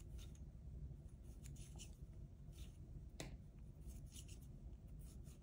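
Faint irregular ticks and scratchy rustles of wooden knitting needles and yarn as knit stitches are worked, over a low room hum.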